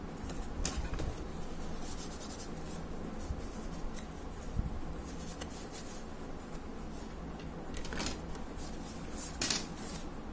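Hard plastic pieces of a 360-degree phone case handled and fitted together, the plastic rubbing and scraping with a few light clicks, the loudest near the end.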